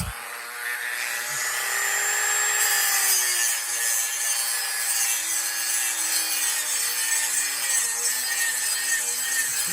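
A high-speed handheld power tool grinding a cut into a pinewood derby car's wood block. It runs continuously, its motor pitch dipping and recovering as it bites into the wood.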